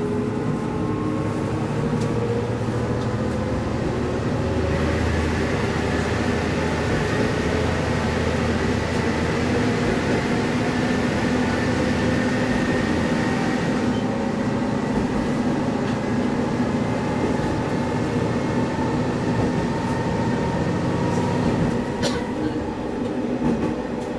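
Diesel railcar of the Sanriku Railway running along the line, heard from inside the car: a steady engine drone over rail rumble. The engine note rises over the first few seconds and then holds. A couple of short knocks come near the end.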